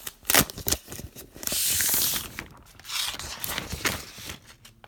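Plastic packaging of a new iPad Pro being handled and pulled off. Clicks and rustles are heard, with a longer scraping, peeling sound about a second and a half in and shorter ones near the end.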